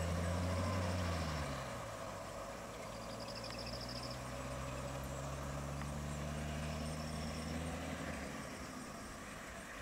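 Vehicle engines idling, a steady low hum. About a second and a half in, the pitch drops and the hum settles into a quieter idle.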